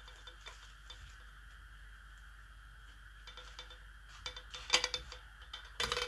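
Light clicks and taps from handling a wool-wrapped flower pot bird feeder with a wooden stick and a clear plastic dish attached. It is quiet at first, with scattered small clicks from about halfway, a cluster about five seconds in, and sharper clicks near the end.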